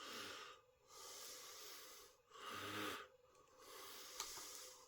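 A person breathing close to the microphone: a run of faint, hissy breaths in and out, roughly one a second.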